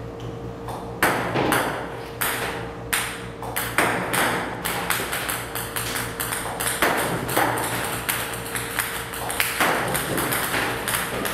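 Ping-pong balls fed by a table-tennis robot striking the table, sharp clicks about once every half second to a second, over a steady low hum.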